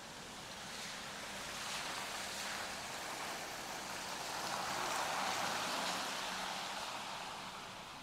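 A car driving past on a wet road, its tyres hissing on the water. The sound swells as the car approaches, is loudest a little past the middle, and fades as it moves away.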